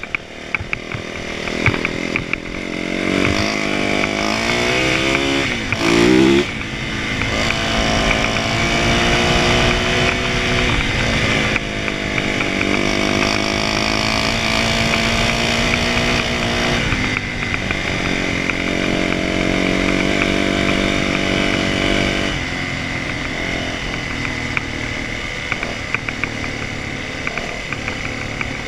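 A motor engine revving and running under changing load. Its pitch climbs to a loud peak about six seconds in, then holds at a few steady speeds, with shifts up and down throughout.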